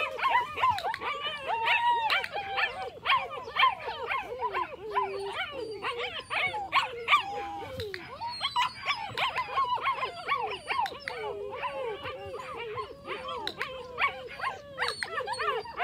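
Eight-week-old puppy whining and yelping in high-pitched cries that rise and fall, almost without a break.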